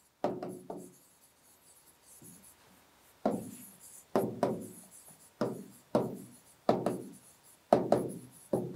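A pen writing on an interactive whiteboard screen: about ten short, separate strokes, each starting sharply and fading quickly, with a pause from about one to three seconds in.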